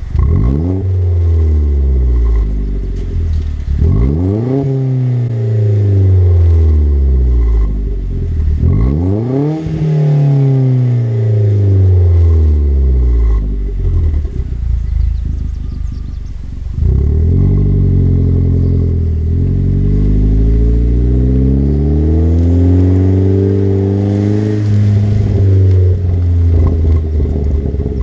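Chevy Sonic RS 1.4-litre turbocharged four-cylinder through a ZZP turboback exhaust, revved up quickly three times with the pitch sliding slowly back down after each. It then runs with the revs climbing gradually for several seconds, drops, and rises again near the end.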